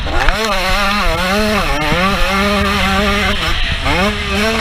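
A 125cc two-stroke motocross bike's engine running hard under race load. The revs climb and drop several times, with short dips about two, three and a half, and four and a half seconds in.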